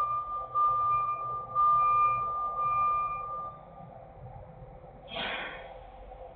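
Tractor-trailer's reverse warning alarm beeping, long single-tone beeps about once a second, stopping about three and a half seconds in. A short burst of noise follows near the end.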